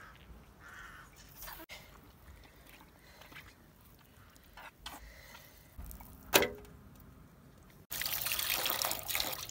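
Water from a metal jug's spout pouring through a sheep's intestine into a basin of water, a steady splashing pour from about eight seconds in, as the intestine is flushed clean. Before it, faint handling sounds and one sharp knock a little past six seconds in.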